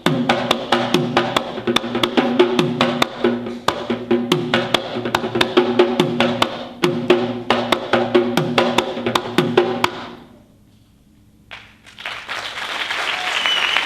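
Traditional Sri Lankan drums played in a fast, dense rhythm of sharp strokes over a ringing drum tone, stopping about ten seconds in. After a short, nearly quiet pause, sound rises again near the end.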